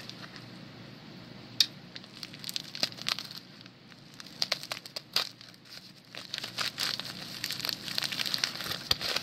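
Packaging crinkling and tearing as it is handled and pulled open by hand: irregular crackles and snaps, with one sharp snap about a second and a half in and busier crinkling in the second half.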